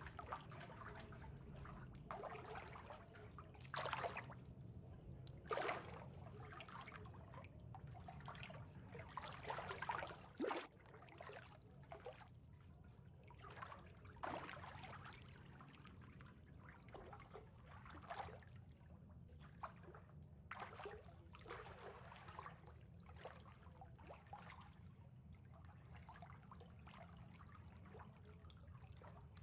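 Gentle water trickling and lapping, like pool water, with soft irregular splashes every second or two over a faint low hum.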